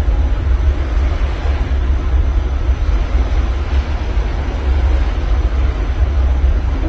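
Ocean waves washing in as a steady hiss that swells and eases, under a heavy low rumble of wind buffeting the microphone.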